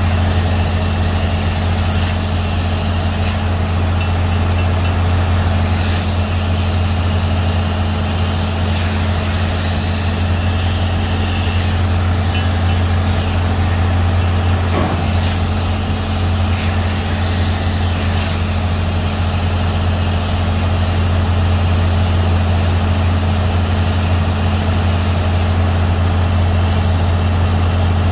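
A heavy engine idling steadily: a low, even hum with a constant hiss over it.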